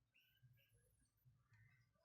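Near silence: faint room tone with a few faint, short high chirps in the background.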